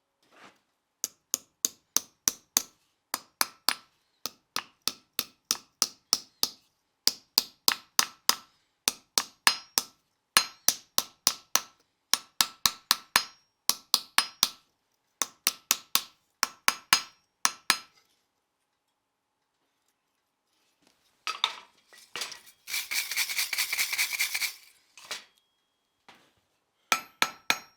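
Hand hammer striking a steel blank in quick runs of four to six ringing blows, about three a second, with short pauses between runs as the piece is shaped. After a pause, a few seconds of harsh rasping scraping, then a few more hammer blows near the end.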